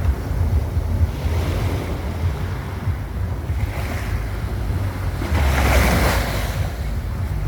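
Sea waves washing onto the shore, with wind buffeting the microphone in a low rumble. One wave breaks louder about six seconds in.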